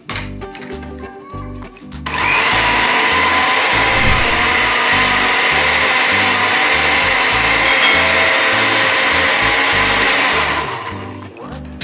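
Countertop blender switched on about two seconds in, running steadily at high speed as it purées oats, spinach and milk into a thin pancake batter, then winding down near the end. Background music with a steady beat plays underneath.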